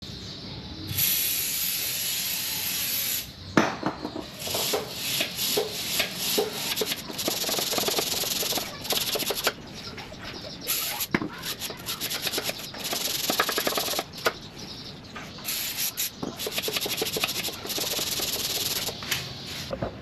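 Aerosol spray from a WD-40 can hissing onto a motorcycle drive chain: one long spray at the start, then repeated bursts of a second or more, with scattered clicks and rattles in between.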